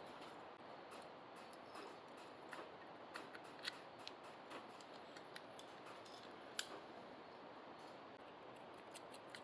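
Faint, irregular small clicks and ticks over a low steady hiss, from hand work on small parts and tools, with a couple of sharper clicks in the middle.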